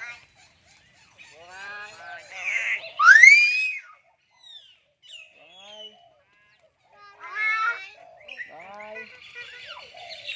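Myna birds calling: a run of whistles, squawks and chatter, with one loud rising whistle about three seconds in and a buzzy, rattling call a little past halfway.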